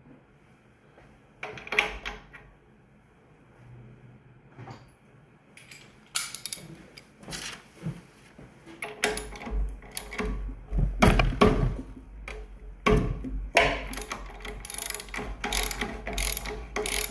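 Ratchet wrench clicking as a fitting on a pressure washer's brass pump is worked loose to take off the unloader valve. A single clatter comes about 2 s in, scattered clicks follow, and dense runs of quick ratcheting fill the second half.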